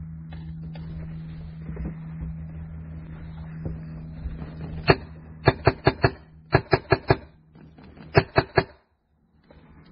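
Magfed paintball marker firing. One shot comes about five seconds in, followed by three quick strings of about five, four and three shots.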